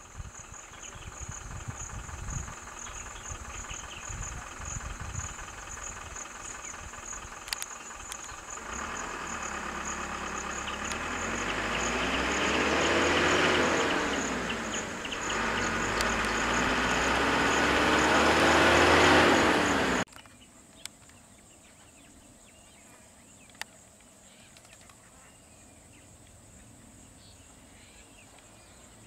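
A vehicle engine revving up and dropping back twice in the middle stretch, loudest just before it cuts off sharply, over a steady fast-pulsing high insect drone. Afterwards only a quiet outdoor background with faint insects.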